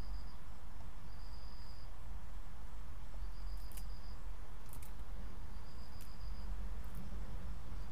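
An insect chirping in short high-pitched trills every second or two, over a steady low hum.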